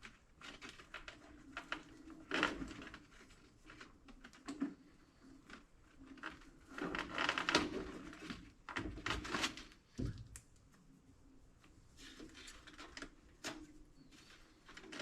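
Faint, scattered handling noises as baler twine is worked by hand in a round baler's twine box: rustling and light knocks, with a sharper click about ten seconds in.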